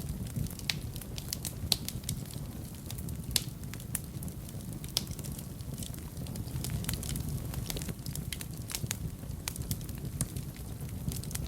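Wood fire burning in a fireplace: a steady low rumble of the flames with irregular sharp crackles and pops, a few of them louder.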